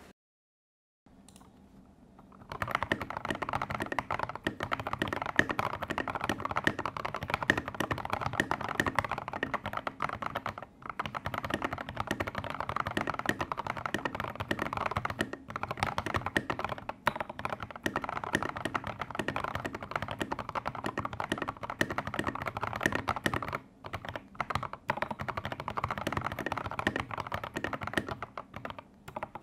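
Fast continuous typing on a Daxa M84 mechanical keyboard fitted with lubed, filmed Gateron Yellow linear switches and SA-profile keycaps: a dense clatter of keystrokes with a few brief pauses. The typing starts about two and a half seconds in, after a short silence.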